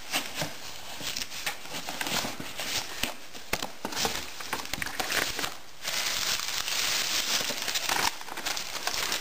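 Wrapping paper crinkling and tearing as a small child rips it off a gift box, in a string of short rustles with a longer continuous tear about two-thirds of the way through.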